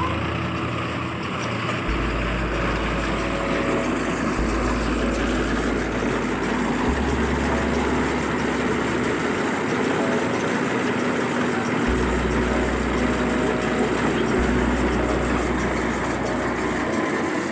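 New Holland 4710 tractor's 47 hp diesel engine running steadily.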